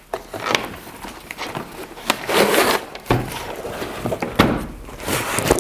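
Handling noises from the unplugged TS-60 amplifier being lifted out and set down: scattered sharp knocks and clicks with a couple of short scrapes.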